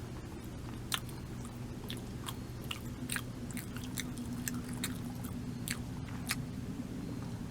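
A person chewing a simit (Turkish sesame bagel) close to the microphone: irregular crunchy clicks and mouth noises as the crust is bitten and chewed.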